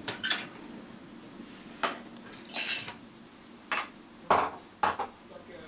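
A series of sharp clinks and knocks, about seven in five seconds, with a short rattle near the middle, like metal kitchenware being knocked.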